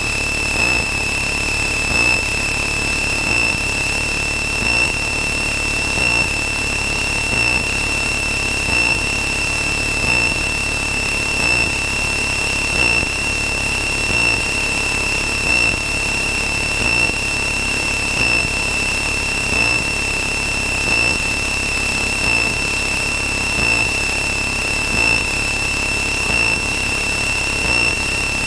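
A steady, high-pitched electronic tone with fainter higher overtones, swelling slightly every second or two, held over the drone of the Cessna 162's Continental O-200 engine as heard through the cockpit audio.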